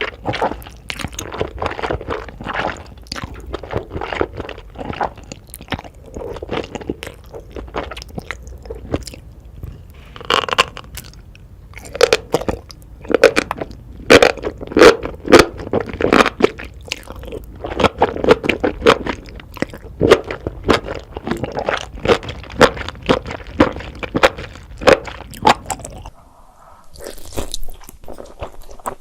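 Close-miked eating: a person biting, crunching and chewing food in quick, irregular crunchy strokes. The crunching is loudest in the middle, then drops away briefly near the end to a softer, hissy sound.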